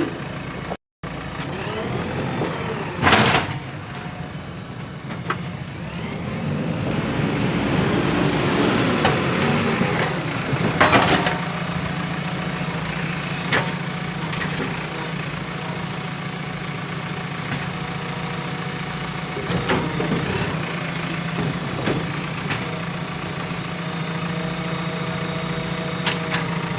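JCB 3DX Plus backhoe loader's diesel engine running steadily, building up under load for a few seconds in the middle, with occasional sharp metallic knocks from the machine working.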